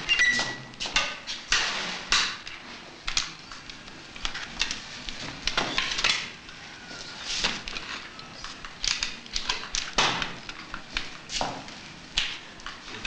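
Irregular clicks, knocks and rustling from handling at a wheelchair, as a seated patient's legs and feet are moved and set in place. A few sharper knocks stand out among the softer clicks.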